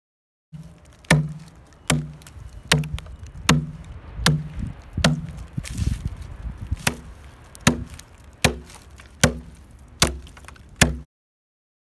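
A hafted stone adze with a narrow gouge-shaped stone blade chopping into a log, hewing out the inside of a dugout canoe. About a dozen sharp, even strokes, a little under one a second, each with a short ring, and one softer, scraping blow about six seconds in.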